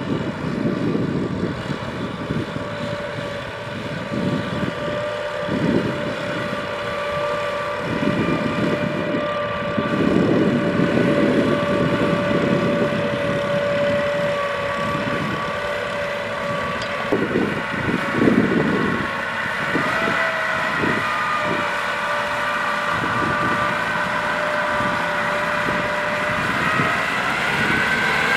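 Kubota M6040 tractor's diesel engine running under load while it pulls a trailer loaded with sacks of rice through a muddy field. The engine note is steady, then rises in pitch about two-thirds of the way through and again near the end as the revs go up.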